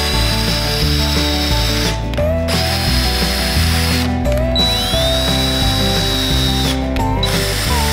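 DeWalt cordless drill running in three runs of about two seconds each, drilling pilot holes into a wooden frame board; each run starts with a rising whine as the motor spins up, then holds steady. Background music with a steady bass line plays underneath.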